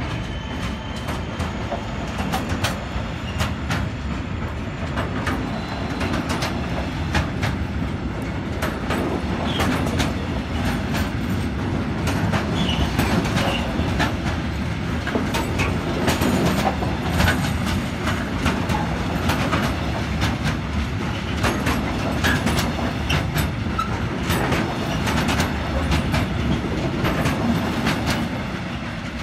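Loaded timber wagons of a heavy freight train rolling past close by, a steady rumble with a fast irregular clatter of wheels over rail joints. It eases off slightly near the end as the last wagons go by.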